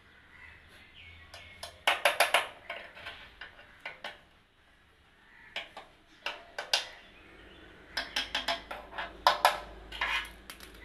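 Runs of sharp metallic taps and clinks in three clusters, about two, six and eight to ten seconds in: a thin metal rod tapping on the steel base pan and compressor mounting bolts of an air conditioner's outdoor unit.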